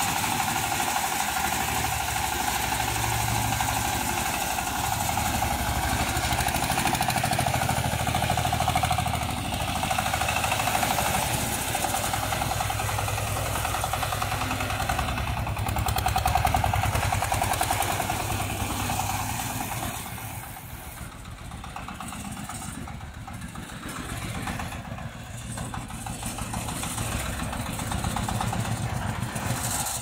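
Engine of a small red crawler tractor-excavator-tiller running steadily as the machine drives about, growing somewhat quieter after about twenty seconds.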